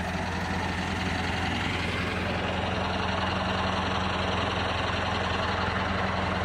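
Large farm tractor's diesel engine idling steadily close by, a constant low hum.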